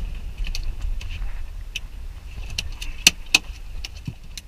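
Scattered clicks and rattles over a steady low rumble, with two sharp knocks a fraction of a second apart about three seconds in.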